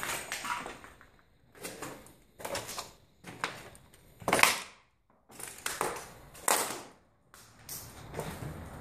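Footsteps crunching over a floor littered with debris and rubble, about one step a second, the loudest about halfway through.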